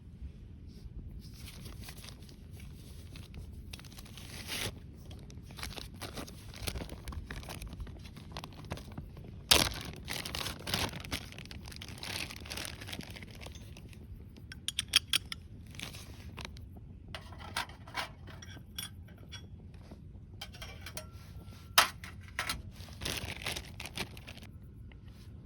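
Handling sounds: rustling and crinkling, broken by sharp clinks and knocks, with the loudest knock about ten seconds in and another near the end.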